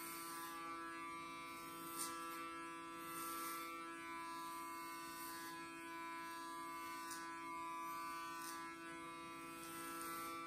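Electric hair clippers running with a steady buzz as they shave hair close to the scalp, with a sharp click about two seconds in and a couple more later.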